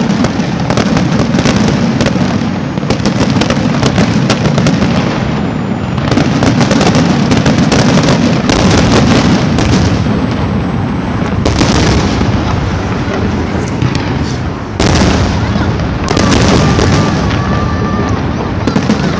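Fireworks going off: a dense, continuous barrage of crackling and banging, with especially loud bursts about 11 seconds in and again around 15 and 16 seconds.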